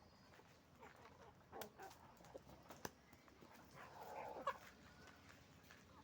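Faint farmyard animal calls: a few short, scattered cries, with a longer, louder one about four seconds in.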